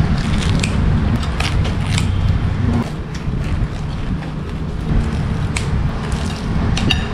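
Kitchen scissors cutting through a crusty baguette, the crust cracking in sharp crunches: a run of them in the first two seconds and a couple more later. A steady low rumble of background noise runs underneath.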